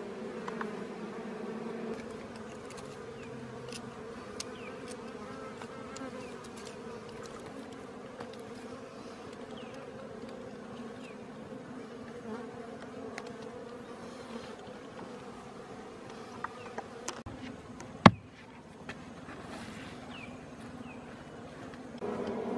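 Bees buzzing in a steady, continuous hum at their nest in an underground cavity. A single sharp click stands out late on.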